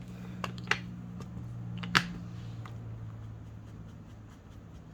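Paper handling at a craft table: a few light taps and clicks, the loudest about two seconds in, over a low steady hum.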